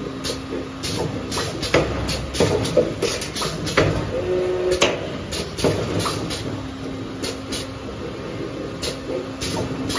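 2D CNC wire bending machine running: a steady motor hum under repeated clicks and clacks as the wire is fed and bent, with a brief whine about four seconds in.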